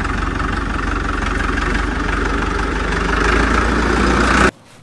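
Miniature model tractor's motor running with a steady engine-like hum and a low rumble. It cuts off suddenly near the end.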